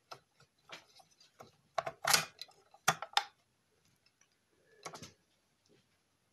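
Irregular metallic clicks and knocks as a battery mounting plate is shifted and pushed into place on a bicycle frame tube, with the loudest knocks about two and three seconds in.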